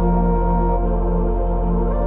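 Slow ambient relaxation music: long sustained chords over a deep steady bass drone.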